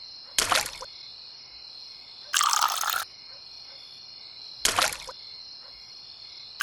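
Water splashing out of a miniature hand pump in short spurts, four times about two seconds apart, over a steady high-pitched background drone.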